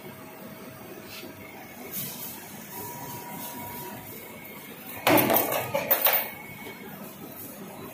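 Wire straightening and cutting machine running steadily, then about five seconds in a loud metallic clatter of several sharp, ringing impacts lasting just over a second as a length of straightened wire rod is cut off and drops clear.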